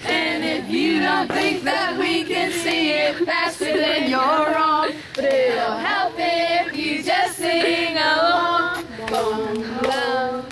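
A group of voices singing together, children among them, with held, wavering notes.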